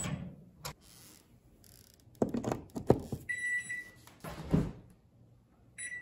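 Magic Chef microwave's keypad beeping twice, a short electronic tone about three seconds in and again near the end, as buttons are pressed. Between them come several loud knocks and clunks of the oven being handled.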